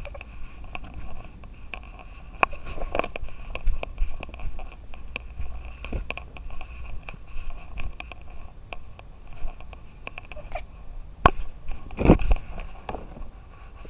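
Close handling noise from a cat's collar-mounted camera as the cat moves: an irregular run of small clicks and knocks over rustling, with a louder knock about twelve seconds in.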